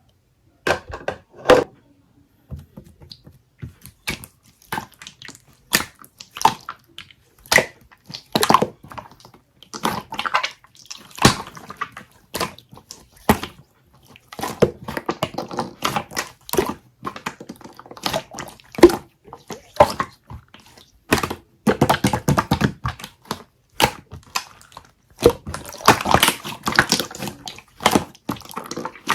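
Stiff, hardened clear honey-jelly slime being squeezed and pressed by hand, making irregular sticky pops and crackles, thicker near the end.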